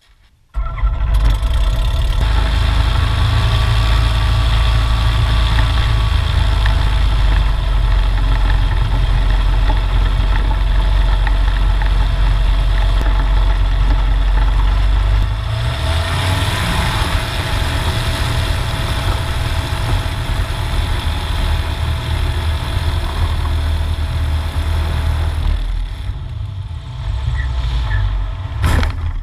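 Kitfox light airplane's engine starting about half a second in, then running steadily with the propeller turning. About halfway through it changes to a broader, rushing takeoff sound. Near the end the engine sound weakens as it loses power on takeoff, which the owner puts down to running out of fuel.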